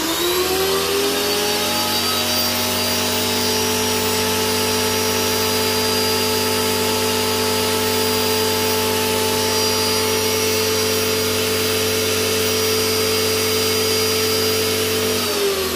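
Electric pressure washer motor spinning up at the start, running with a steady hum while it sprays, then winding down just before the end. Its output seems weak and the owners suspect something is wrong with it, perhaps the water supply.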